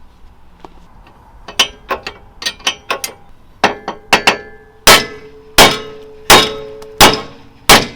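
Hammer striking metal: a few lighter taps, then heavy ringing blows about every 0.7 seconds from about halfway through.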